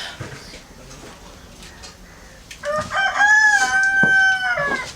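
A rooster crowing once, one long call of about two seconds that starts a little past halfway, rises, holds steady and falls away at the end.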